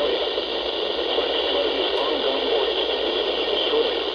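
Weather radio receiver hissing with steady static, a faint broadcast voice barely coming through under the noise.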